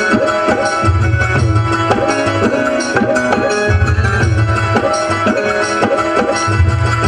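Live devotional bhajan band playing an instrumental passage with no singing: a steady hand-drum beat under held melody notes, with a deep bass that comes in for about a second and a half roughly every three seconds.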